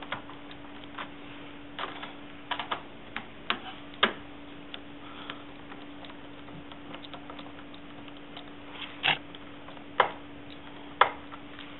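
Scattered light clicks and ticks of a Phillips screwdriver turning out the captive screws of an iMac's RAM access cover, over a steady low hum.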